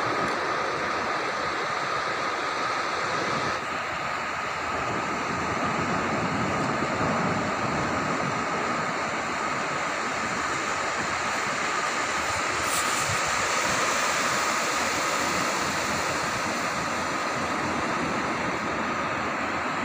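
Sea surf breaking and washing up a sandy beach: a steady, even rush without let-up.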